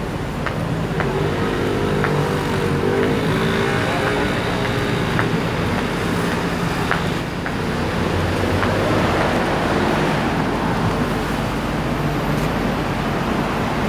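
Busy city road traffic: cars, buses and trucks running past in a steady noise, with the low hum of heavy vehicle engines and one engine's pitch shifting briefly a few seconds in. A few faint taps sound in the first half.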